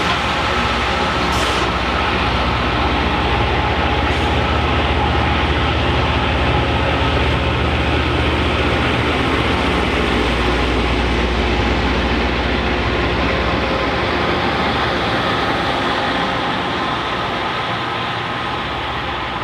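Railroad train on the move: a loud, steady deep diesel drone over dense rolling noise, easing off slightly near the end.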